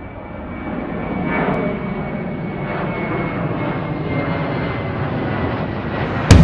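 Airplane engines running with a steady rumble and a thin, high, steady whine, swelling about a second in. Near the end a sudden loud boom cuts in.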